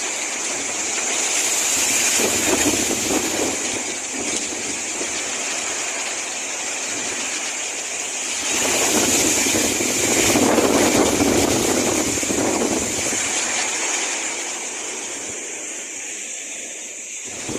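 Storm wind blowing in strong gusts that swell and ease over a steady rushing hiss, with the strongest gust about nine to eleven seconds in. The wind is strong enough to threaten to tear off roof sheeting and bring down trees.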